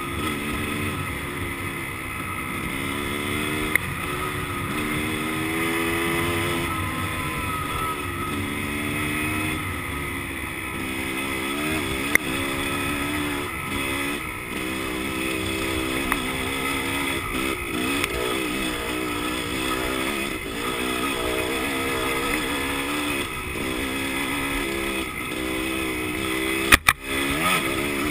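Dirt bike engine being ridden hard off-road, its pitch rising and falling over and over with the throttle and gear changes, with a few sharp knocks.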